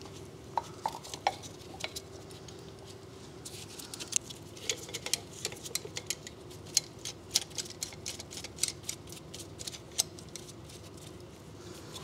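Light metallic clicks and clinks as a brake caliper piston compression tool and an old brake pad are handled and fitted against a disc brake caliper. The clicks come thick and irregular through the middle, over a faint steady hum.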